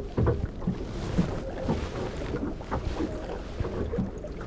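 Choppy sea water slapping irregularly against the hull of a small wooden boat, with wind buffeting the microphone.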